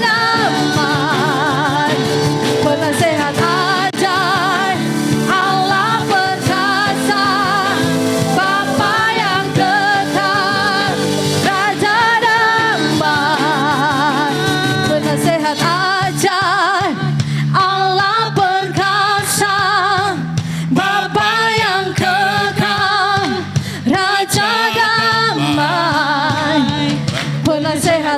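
Worship song performed live: sung vocals with vibrato, in phrases, over instrumental accompaniment.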